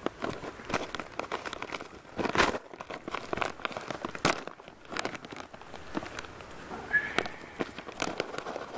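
Foil-lined Mountain House freeze-dried meal pouch crinkling and tearing as it is ripped open across the top and pulled apart by hand, a run of irregular crackles with a louder one about two and a half seconds in.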